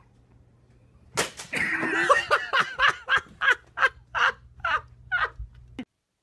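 A person's sudden high cry about a second in, running straight into a string of loud laughter in short bursts, about two or three a second, which cuts off abruptly near the end.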